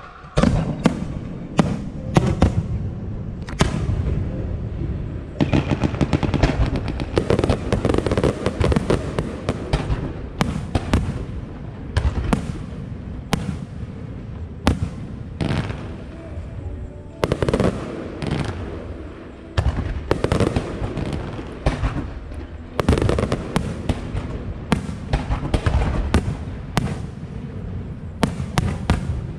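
Aerial fireworks display: shells bursting one after another in sharp bangs, with long stretches of dense crackling between them.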